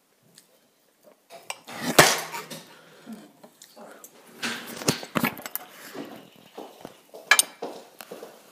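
Cutlery and dishes clinking, knocking and scraping on a table in uneven bursts, the loudest knock about two seconds in.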